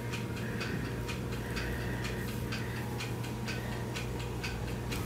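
Regular ticking, about four ticks a second, over a steady low hum.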